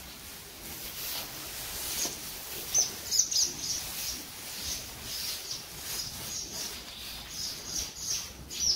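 Birds chirping, in short high chirps that come in several groups, over a low background hum of the barn.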